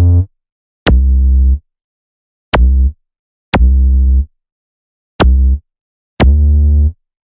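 Electronic music: six short, deep synth bass notes in an uneven rhythm, each starting with a sharp click and cutting off into complete silence before the next.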